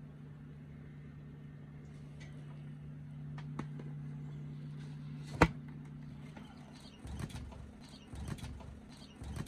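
A king quail chick's wings flapping in a few short bursts as it flies up out of the brooder, after a sharp click about five and a half seconds in. A steady low hum stops about six seconds in.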